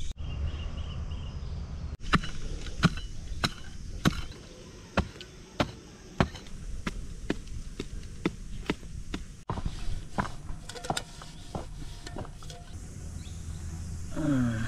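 Repeated chopping strokes, about two a second, with abrupt breaks twice.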